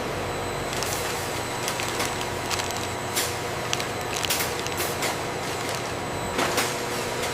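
Steady factory machinery noise: a dense hum with several steady tones, broken by short sharp hisses or clanks now and then.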